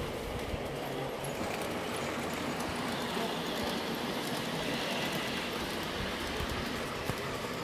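Garden-scale model ICE train running past on the track, its wheels and motors making a steady rolling whir that swells slightly as it passes close by.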